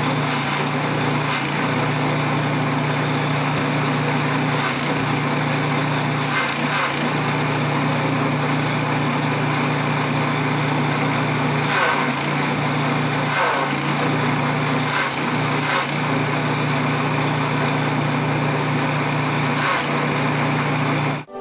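Small engine driving a grass-chopper (chaff cutter) as its blades chop dry rice straw fed in by hand. The engine runs steadily, and its note dips briefly with a crunching crackle every few seconds as straw goes in.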